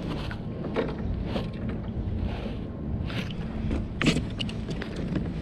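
Water lapping at a plastic kayak hull, with a low wind rumble on the microphone. A few short, sharp knocks and splashes break through, the loudest about four seconds in.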